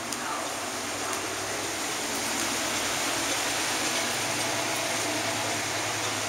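A steady rushing noise that swells gently through the middle and eases near the end.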